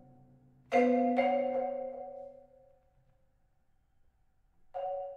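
Mallet keyboard percussion, marimba and vibraphone, playing sparse music: a ringing chord struck twice about a second in that fades over about two seconds, a silent pause, then another chord struck near the end.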